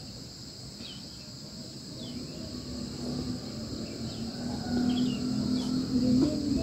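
A steady high insect chorus, with short chirps repeating now and then over it. Under it is a low rumble that grows louder through the second half, with a low steady hum in the last few seconds.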